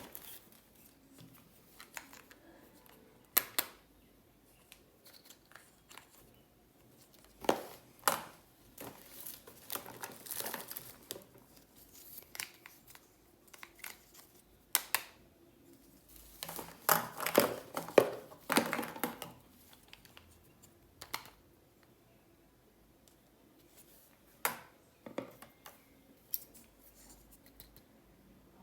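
Plastic candy and snack packaging being handled: crinkling and tearing open in irregular clusters of sharp crackles, with quiet pauses between them.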